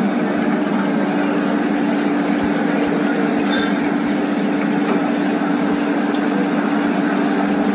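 Lobster tank's water pump and circulating water running: a steady hum with a constant rush of water.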